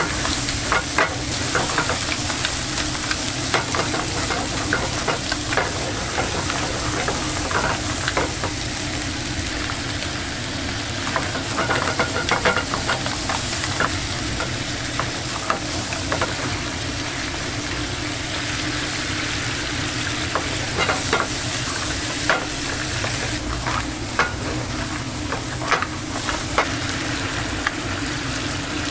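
Seafood, including lobster, mussels, squid and scallops, sizzling as it stir-fries in a pan over a high gas flame. Metal tongs click and scrape against the pan again and again as the pieces are turned.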